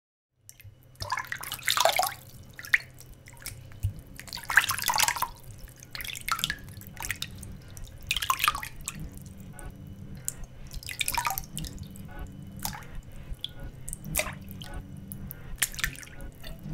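Water dripping at irregular intervals over a steady low hum, starting about half a second in.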